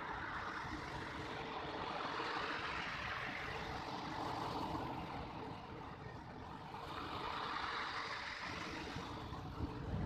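Big ocean waves breaking and washing up a pebble beach: a steady roar of surf that swells twice and eases in between.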